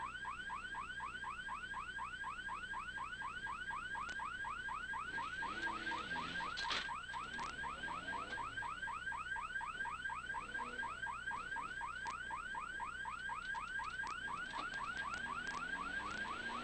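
Electronic warning siren on a rally course car, yelping continuously: a quick rising whoop repeated about five times a second.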